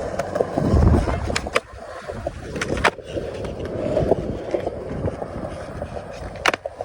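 Skateboard wheels rolling on concrete, with sharp clacks of the board and trucks striking several times: a pair about a second and a half in, another pair near three seconds, and a louder one near the end. A low rumbling surge comes about a second in.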